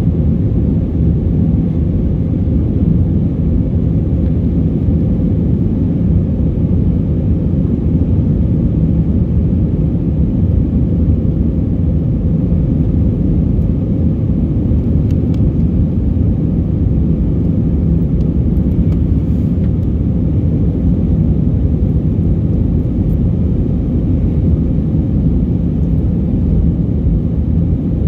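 Airliner cabin noise heard from a passenger seat: a steady low rumble of engines and rushing air, with a faint steady hum above it.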